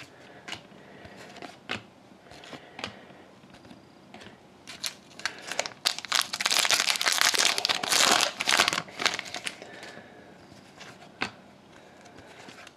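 Foil trading card pack wrapper crinkling loudly for about three seconds, about halfway through, as it is handled and torn open. Before and after it come scattered light clicks of cards being shuffled in the hands.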